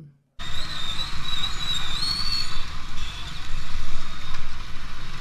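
Motorcycle riding through traffic, heard through the bike's action camera: steady engine and wind rumble on the microphone. Just after a brief cut to silence at the start, a high wavering whistle-like tone runs for about two seconds.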